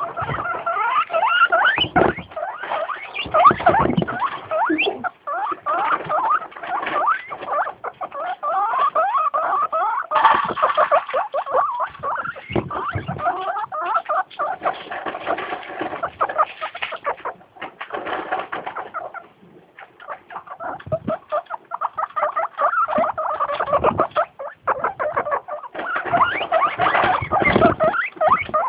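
Guinea pigs squeaking and wheeking over and over in a continuous run of short, high, rising and falling calls, with a brief lull a bit past the middle; this insistent wheeking is how guinea pigs call for their food at feeding time.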